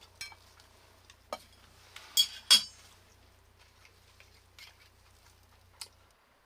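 Dishes and utensils clinking and knocking: several separate knocks, the two loudest, about two and a half seconds in, ringing briefly.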